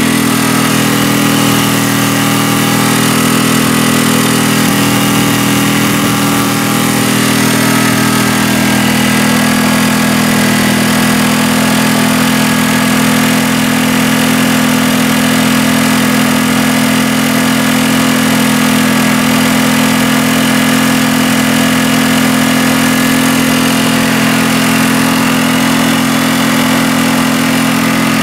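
Small gasoline engine running steadily at an even speed, fed on gasoline vapor through a hose and ball valve instead of its carburetor's liquid fuel.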